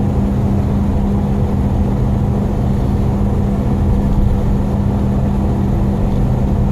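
Steady engine and road drone of a vehicle being driven, with a constant low hum throughout.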